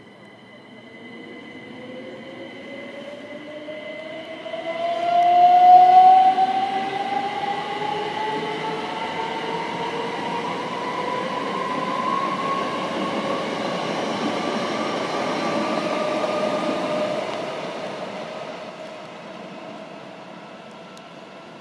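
Class 377 Electrostar electric multiple unit pulling away, its traction motors whining in several rising tones as it accelerates. The whine is loudest about five seconds in, then fades as the train draws away.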